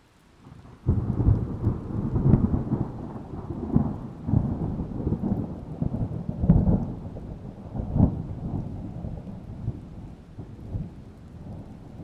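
Thunder over rain: a sudden loud crack of thunder about a second in, then rolling rumbles that swell several times and slowly die away.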